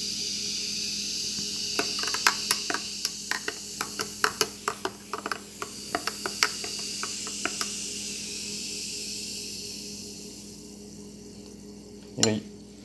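Glass of Coca-Cola fizzing hard just after black salt is dropped in, a steady hiss of bubbles that fades away over the last few seconds: the salt sets the dissolved gas foaming out. From about two seconds in, a metal spoon stirring the drink clinks against the glass many times for about five seconds, and a single knock comes near the end.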